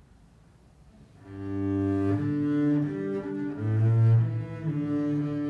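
Double bass played with a bow. After about a second of quiet, it plays a slow line of long held notes, with a deeper, louder note about four seconds in.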